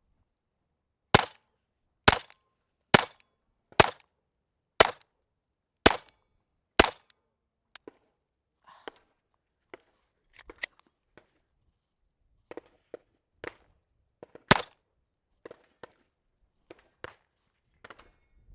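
Glock 44 pistol firing .22LR rounds: seven shots at a steady pace of about one a second, then a pause filled with small clicks and handling noises, and one more shot about two-thirds of the way through.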